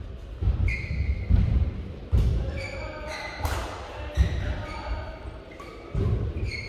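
Badminton play on an indoor court: players' feet thudding on the court floor roughly once a second, with short high squeaks of court shoes and sharp racket-on-shuttlecock hits.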